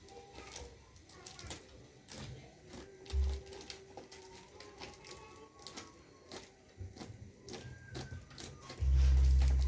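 Irregular small clicks and taps from handling a package or parts by hand, with a low thump about three seconds in and a loud low rumble near the end.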